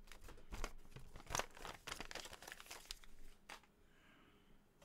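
Plastic crinkling with light clicks and rustles as small parts and packaging are handled, stopping about three and a half seconds in.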